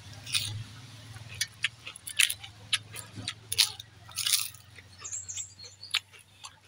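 Eating sounds of rice and chicken curry eaten by hand: irregular wet mouth smacks and clicks of chewing, several a second, over a faint steady low hum.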